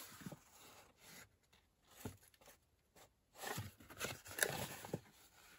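Folded book-page paper rustling and crinkling as a concertina-folded paper journal is flexed and pressed by hand, with crisp crackles at the creases, busier in the second half.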